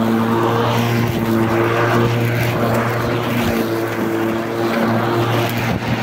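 Lawn mower engine running steadily at a constant pitch.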